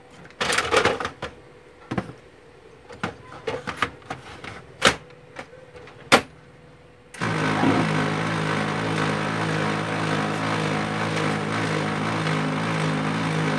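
Clicks and knocks as a toner cartridge is pushed into an HP LaserJet 1320 and the printer is closed. About seven seconds in, the printer's drive motor and gear train start abruptly and run steadily for about six seconds with a low, even mechanical hum: its start-up cycle with the cartridge in place.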